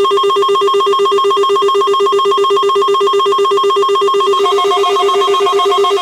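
Electronic alert tone of the NOAA Weather Radio weekly test: a loud, rapidly pulsing two-tone alarm that starts abruptly right after the data-burst header. Another tone joins about four and a half seconds in.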